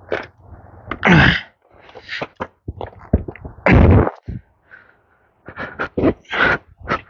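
Hand tools and tire-repair kit parts being handled on an ATV tire: a run of knocks and clatters, with louder scraping bursts about a second in and near four seconds.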